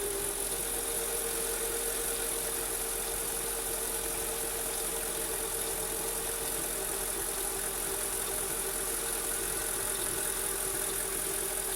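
2003 Mercedes-Benz S430's V8 idling steadily during warm-up, with the gurgling, bubbling noise that the owner hears at warm-up and cannot account for.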